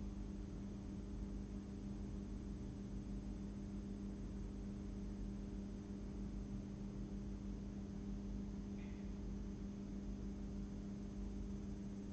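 A steady low electrical hum with faint background hiss, and one faint short sound about nine seconds in.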